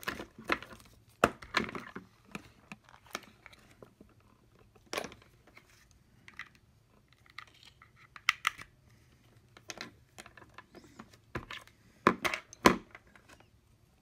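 Irregular clicks, taps and light rustles of small electronic parts and wires being handled, with a cluster of louder clicks near the end.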